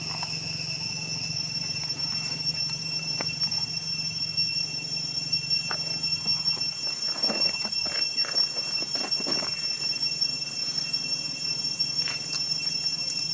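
Steady high-pitched drone of insects in the background, with a run of short rustles and clicks between about seven and nine seconds in.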